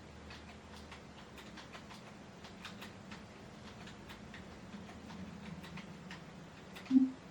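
Faint irregular clicking over a low steady hum, with one short, loud low-pitched tone about seven seconds in.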